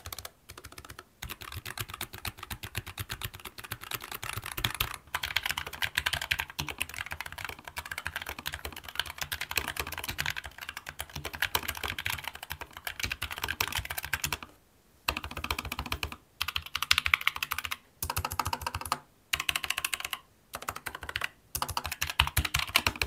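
Fast typing on Keychron K-series low-profile mechanical keyboards with Gateron Low Profile MX 2.0 switches: dense runs of key clicks, broken by several short pauses. It is a sound comparison between the plain K1 and the K3 Max and K5 Max, which have more sound-dampening layers.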